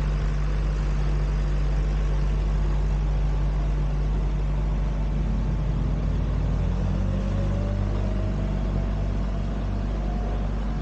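An engine running steadily, its pitch shifting about six seconds in, with a faint rising whine after that.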